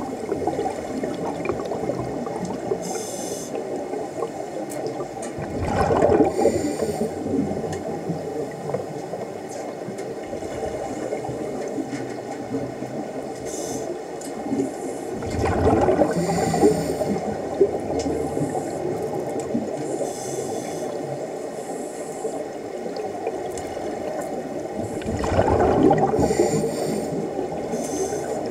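Scuba regulator breathing heard underwater: exhaled air bubbles out in a gurgling burst about every ten seconds, with a faint hiss of inhalation between, over a steady underwater rush.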